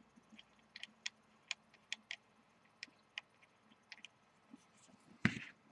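Faint, irregular small clicks and taps of fingers handling a metal rebuildable dripping atomizer (RDA) while its coil resistance is being checked. There is one louder rustle near the end.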